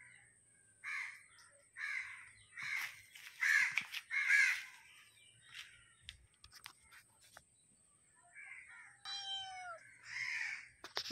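A run of harsh animal calls, about one a second, getting louder over the first few seconds, followed by a few light clicks, a short call falling in pitch, and more calls near the end.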